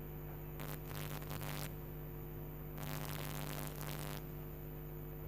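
Low, steady electrical hum in the recording, with two faint soft hisses about a second long each.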